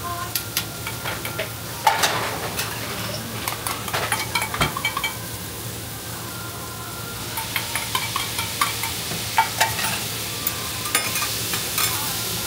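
Yakisoba noodles and batter pancakes sizzling on a steel teppan griddle, with frequent light clicks and taps of a metal spoon and spatulas against the hot plate. The sizzle grows louder about seven seconds in.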